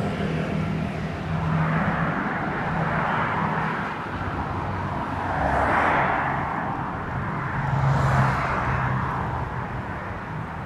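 Road traffic passing close by on a city street: vehicles going past one after another, each swelling and fading, the loudest about six seconds in, over a low engine hum.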